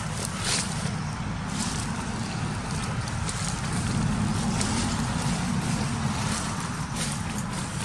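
Steady low rumble of wind buffeting the microphone, with a faint hiss above it.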